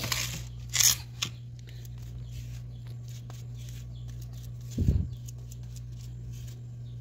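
Small spatula scraping grout over ceramic floor tiles and into the joints: two loud scrapes in the first second, then fainter scratching, and a dull thump about five seconds in. A steady low hum sits underneath.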